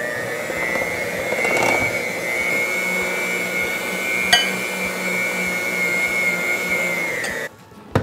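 Hamilton Beach electric hand mixer running at a steady speed, its beaters working flour into thick cookie dough in a glass bowl; the motor's whine holds even, then cuts off about seven and a half seconds in. A single sharp click sounds about four seconds in.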